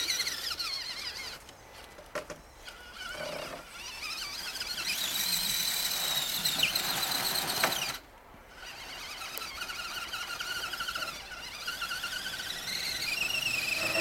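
Whine of an Axial SCX10 RC rock crawler's 21-turn brushed Traxxas electric motor and gearbox driving its tyres through snow, the pitch rising and falling with the throttle. The whine stops briefly about eight seconds in, then starts again.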